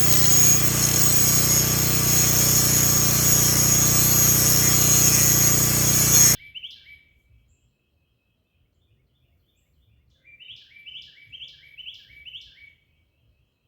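Angle grinder running steadily, then cutting off abruptly about six seconds in. After that a small bird chirps once, and near the end gives a quick series of about five chirps.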